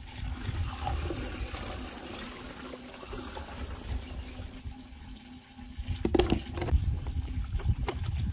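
Water poured from a plastic basin splashes over dishes in a plastic washing-up tub for about four seconds. A few seconds later comes the clink and knock of crockery being handled in the tub.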